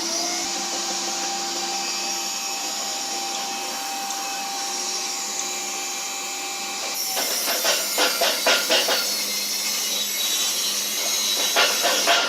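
Woodworking power tool running steadily with a thin whine, then from about halfway a harsher, rhythmic rasping of about three strokes a second as it works the wood, easing off and returning near the end.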